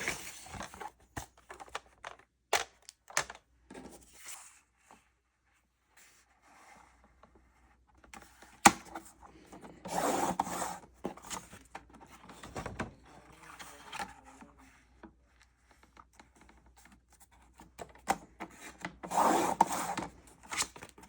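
A sheet of heavy watercolor paper being scored and folded in half on a scoring board: scattered taps and clicks with rubbing and scraping, and two longer rustling scrapes, one about halfway through and one near the end.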